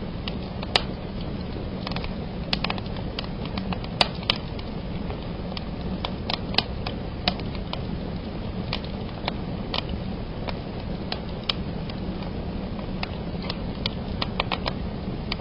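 Wood fire burning in a fireplace: a steady low rumble of flames under irregular sharp cracks and snaps, mostly small ones with a few louder pops scattered through.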